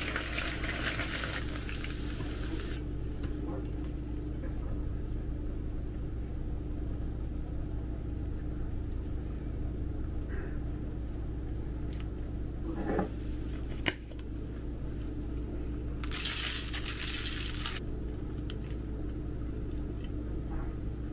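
Kitchen food-prep sounds over a steady low hum: a few sharp clicks and clinks, the loudest about 14 seconds in, and two brief hissing bursts, one at the start and one lasting about two seconds near the end, while seasoning is shaken over the wings.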